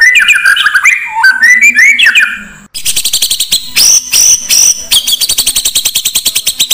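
Recorded songbird song played as a lure to stir up a magpie-robin: a run of sliding whistled phrases. Just under three seconds in it breaks off, and a fast, rapid series of short high notes follows, about ten a second.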